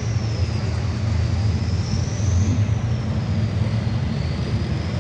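Column of tanks and tracked armoured vehicles on the move: a steady low engine and track rumble, with a thin high whine that slowly rises and falls.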